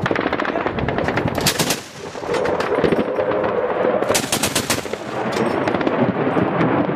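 Machine gun firing in long rapid bursts, with a short lull about two seconds in.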